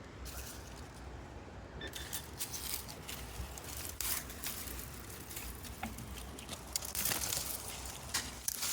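Digging and scraping in dirt and tree roots around a buried metal object: irregular scratching and crackling with small clinks, busier from about two seconds in.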